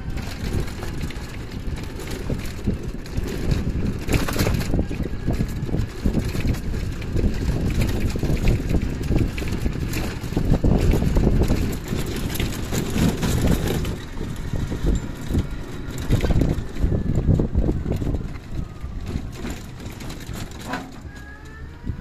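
An open rickshaw van bumping along a rough village road: a steady jolting rumble and rattle from the wheels and body, with wind on the microphone. A faint rising whine comes in near the end.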